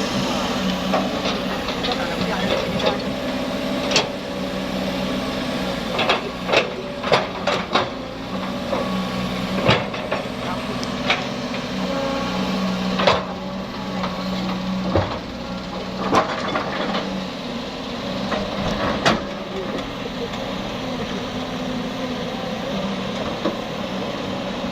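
Heavy machinery's diesel engine running steadily, with a series of sharp knocks and clunks over it, most bunched together a few seconds in and others scattered later.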